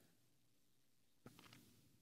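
Near silence: room tone, with a couple of faint ticks a little past halfway.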